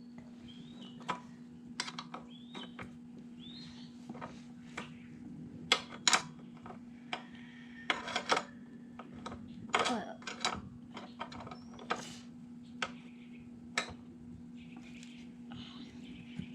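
Scattered metal clinks and knocks of open-end wrenches on the dirt bike's rear axle nut and hardware, a couple of dozen irregular hits, over a steady low hum.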